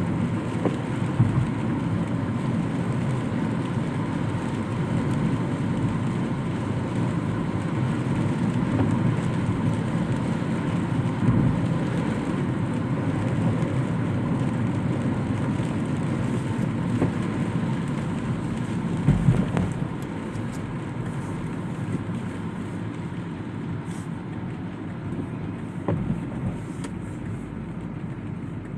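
Steady rumble of a moving vehicle, with a few short knocks along the way.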